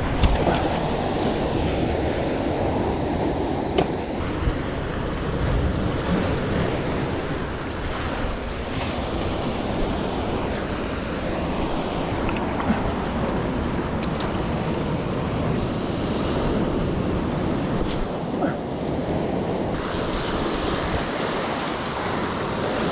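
Ocean surf breaking and washing in steadily, with wind buffeting the microphone.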